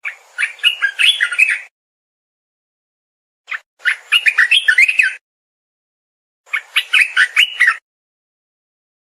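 Olive-winged bulbul (merbah belukar) singing: three short phrases of quick notes, each about a second and a half long, separated by silent gaps of one to two seconds.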